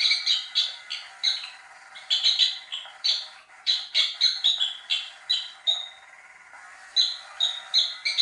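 Battery-powered cat toy disk on its squeak setting, giving short, high electronic chirps in uneven runs of two or three a second with brief pauses, over a faint steady hum.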